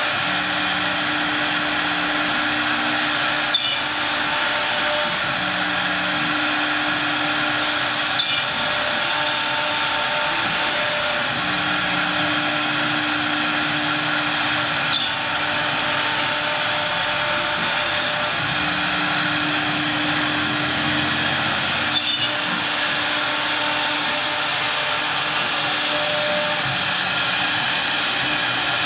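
Faisal Engineering FE066P CNC router running steadily, its spindle and bit cutting a lattice pattern into a sheet. A low hum comes and goes, and there are four brief sharp ticks.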